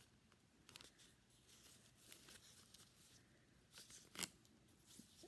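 Near silence with faint handling noise from a spiral-bound cardboard notebook being turned over in the hands: a few light rustles and clicks, the sharpest about four seconds in.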